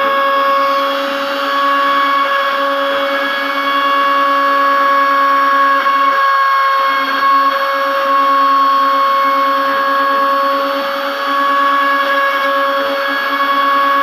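Small CNC router spindle running at high speed with a steady whine while its fine engraving bit cuts a logo into a thin metal sheet, with a scratchy cutting hiss. A lower hum drops out for about half a second a little past the middle.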